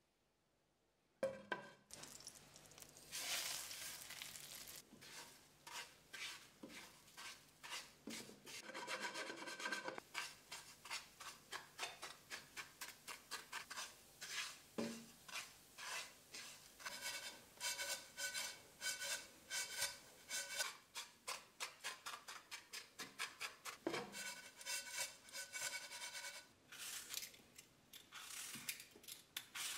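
Breadcrumbs being stirred and scraped around a non-stick frying pan as they toast in melted butter, in a long run of even strokes, about three a second. Near the end comes the rasp of a metal vegetable peeler stripping an apple's skin.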